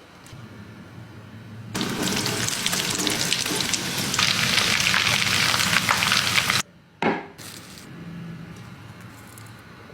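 Food sizzling and crackling as it fries in hot oil. It starts about two seconds in, grows louder, and cuts off suddenly near seven seconds, followed by a brief burst and then fainter sounds.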